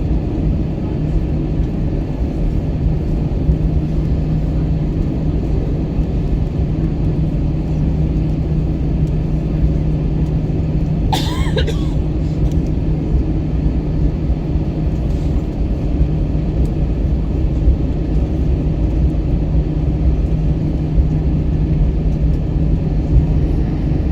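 Airbus A321 cabin noise on the ground before takeoff: a steady low rumble with a constant low hum from the engines and air system. A brief higher-pitched sound about halfway through.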